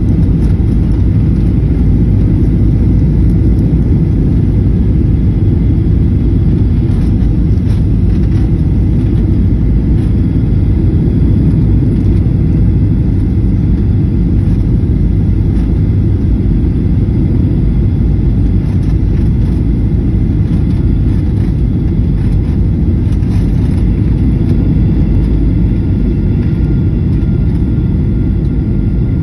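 Airliner cabin noise during a landing approach: a loud, steady low rumble of engines and airflow with a faint thin whine above it.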